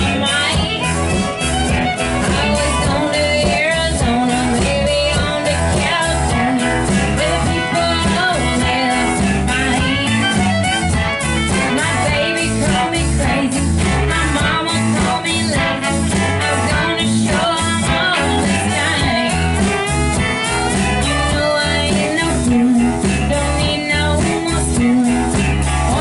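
Live country band playing: a woman singing over strummed acoustic guitar, electric guitar, fiddle and drums, with a steady beat.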